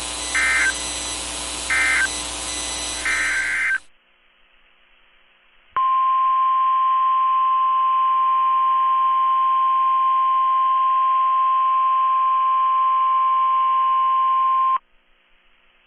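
Three short bursts of NOAA Weather Radio SAME digital data tones, about a second and a half apart, over radio hiss. After a brief pause comes the weather radio's 1050 Hz warning alarm tone, a single steady pitch held for about nine seconds and then cut off sharply, the signal that switches on alert receivers.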